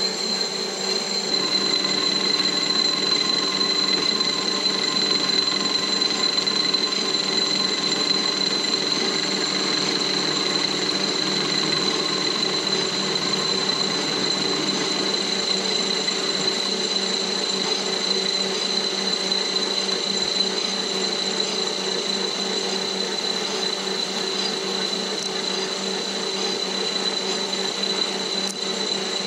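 PM-1022V metal lathe running steadily under a cut, turning down an aluminum wheel spacer: a steady high whine from the machine over the hiss of the tool in the aluminum.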